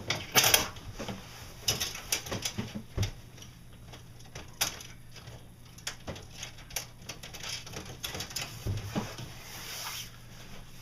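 Irregular clicks, taps and knocks of hand tools and metal hardware as a stove gimbal is fastened in place, with the loudest knocks right at the start. A faint low hum runs steadily underneath.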